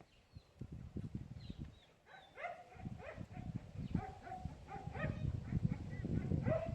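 A dog whining and whimpering in short, repeated high calls that begin about two seconds in, over low rustling and knocking.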